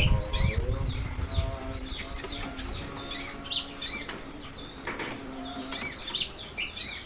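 Brown-throated sunbird (kolibri ninja) singing a fast, varied string of short high chirps and sweeping notes. A low rumble sits under the song in the first second or so.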